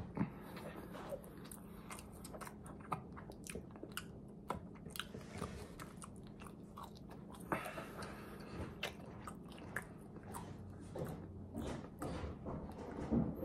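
A person chewing French fries close to the microphone, irregular small crunches and mouth clicks, over a faint steady low hum.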